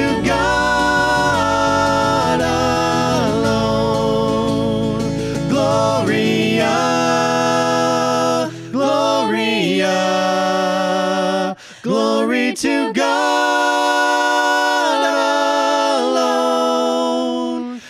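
Worship song sung by a praise band, in long, held notes. The low instrumental accompaniment fades out about six or seven seconds in, leaving the voices singing unaccompanied.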